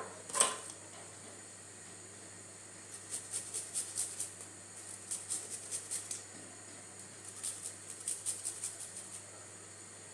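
Garlic cloves being grated on a flat handheld metal grater: three bursts of short scraping strokes, about four a second, after a single knock about half a second in.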